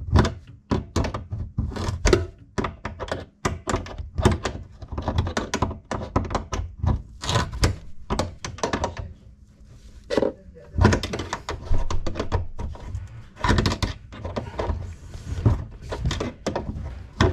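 Irregular clanks, knocks and clicks of hand tools against metal plumbing fittings as a mixer tap is fitted and its nuts tightened, with a short lull about nine seconds in.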